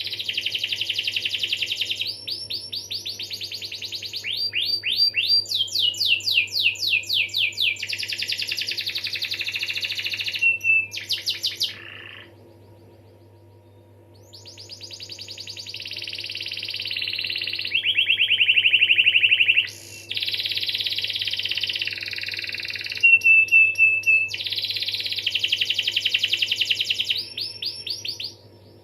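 Canary singing a long song of rapid trills and rolls, one phrase after another, with a pause of about two seconds near the middle. A faint steady hum lies underneath.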